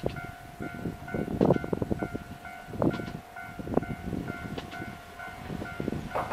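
Railroad crossing warning bell ringing steadily, about two evenly spaced dings a second, signalling an approaching train. Irregular low thumps and rumbles sound over it.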